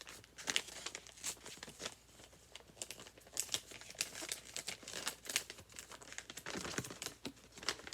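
Hands opening a small spell-kit pack: the packaging crinkles and tears in a run of short crackles.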